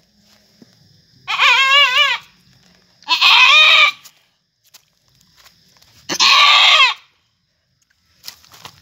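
Goat bleating three times, loud quavering calls each under a second long, a few seconds apart; a doe in labour as her kid is delivered.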